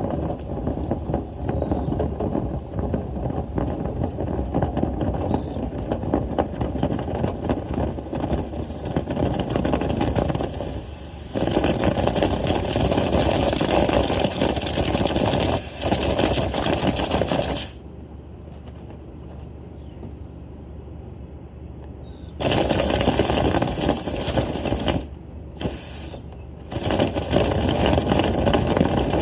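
A motor running steadily, louder with a strong hiss from about eleven seconds in, then cutting out for about four seconds and twice more briefly before running on.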